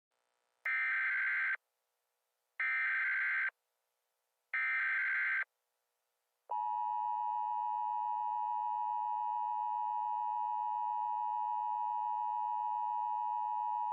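Emergency Alert System tones: three short buzzy bursts of SAME header data, evenly spaced, then about six and a half seconds in the steady two-tone EAS attention signal, which holds unbroken. This is the alert signal that marks the start of a new emergency message.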